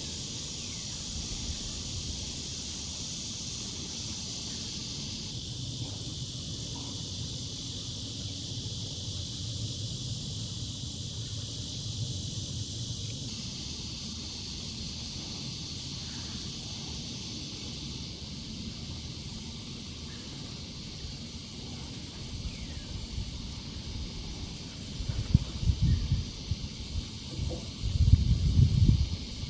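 Forest ambience: a steady high hiss of insects with a few faint, short bird calls here and there. Low rumbling bursts come in over the last few seconds and are the loudest sound.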